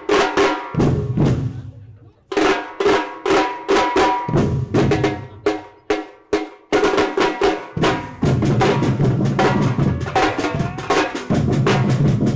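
Percussion-heavy music: loud drum hits and drum rolls over a pitched backing. It breaks off briefly about two seconds in and again near six seconds, then settles into a steady, dense beat.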